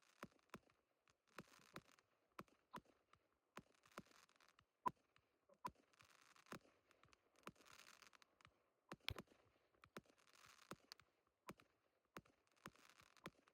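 Near silence: faint scattered clicks and a soft hiss that comes and goes every few seconds.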